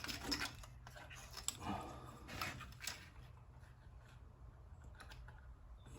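Faint handling noises: a few light clicks and rustles of small parts being worked by hand in the first three seconds, then quieter, over a steady low hum.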